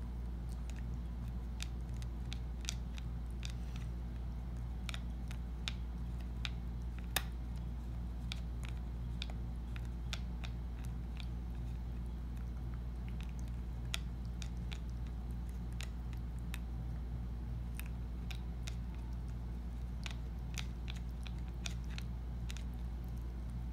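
A cat biting and chewing on a wooden drum stick: irregular sharp clicks of teeth on wood, over a steady low hum.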